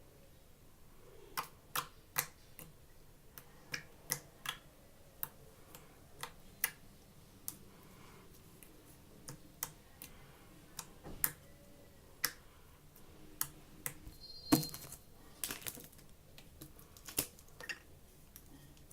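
Slime being poked and squeezed by hand, giving irregular sharp clicks and pops, with a quicker run of them about three-quarters of the way through.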